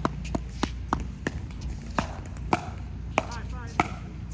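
Pickleball paddles striking a hard plastic pickleball: a string of sharp, hollow pops at uneven intervals, some loud and close, others fainter. A brief voice comes in a little past three seconds.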